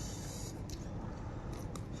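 Quiet chewing and mouth sounds while eating sheep's head meat, a few faint soft clicks and brief hiss over a steady low background noise.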